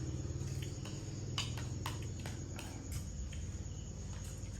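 Crickets chirping steadily, over a low steady hum, with a few sharp clicks between one and three seconds in.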